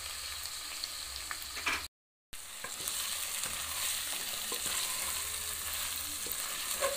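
Chicken pieces sizzling in a metal pot, with a wooden spoon stirring and scraping through them in the second half. The sound cuts out completely for a moment about two seconds in.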